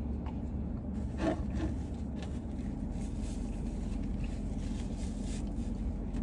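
Chewing, then a paper napkin rubbing across the mouth and beard, in soft rustling strokes over a steady low hum inside a parked car.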